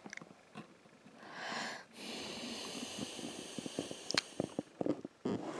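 A person breathing close to the microphone: a short breath in, then a long slow breath out of nearly three seconds, with a few small taps of handling near the end.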